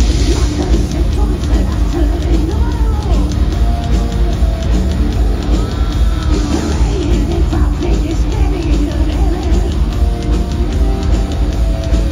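Heavy metal band playing live and loud, with distorted electric guitars, bass and drums and a male lead singer, heard from within the audience.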